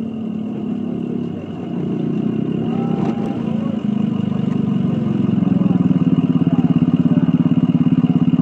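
Vehicle engines idling close by, a low steady throb that grows louder and more evenly pulsed about five seconds in, as a Ford Super Duty pickup pulls up and stops alongside.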